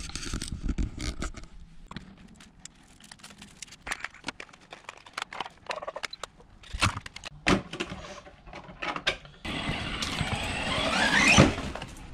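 Scattered clicks and knocks from a Maverick Quantum MT Flux RC car being handled. About nine seconds in, its brushless electric motor whirs up with a whine that rises in pitch for about two seconds, then cuts off.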